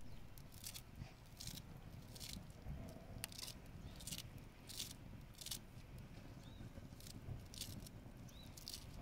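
Small knife slicing through a bunch of fresh herbs held in the hand, each cut a short crisp snip, about one a second with a short pause in the middle. Faint bird chirps now and then.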